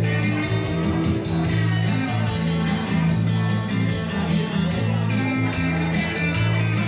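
Country line-dance song with guitar and a steady beat, played over loudspeakers.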